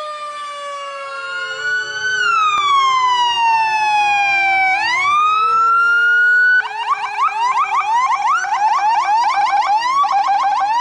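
Electronic emergency-vehicle siren: a slow wail that falls and then rises once, switching abruptly about two-thirds through to a rapid yelp of about five rising sweeps a second.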